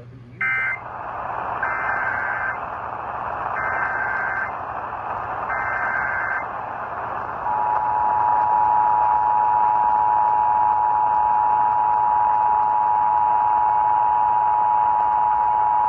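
Emergency Alert System signalling over steady radio hiss. A short screechy data burst closes the previous alert's end-of-message code, then three longer SAME header data bursts come about two seconds apart. About seven seconds in, the steady two-tone EAS attention signal starts and holds to the end.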